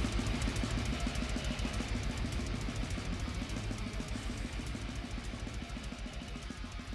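Instrumental background music with guitar over a busy drum kit, slowly getting quieter.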